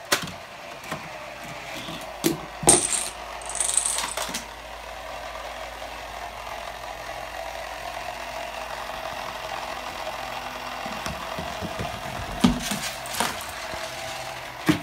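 Homemade Rube Goldberg machine running: a small electric motor whines steadily with a ratcheting, geared sound. A few sharp clicks and clatters come in the first four seconds, and a cluster of knocks comes near the end as a row of books topples like dominoes.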